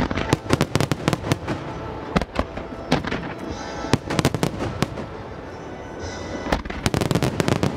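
Starmine fireworks barrage: volleys of shells going off in quick sharp bangs, in clusters with short gaps, with the densest run near the end. Recorded music plays underneath.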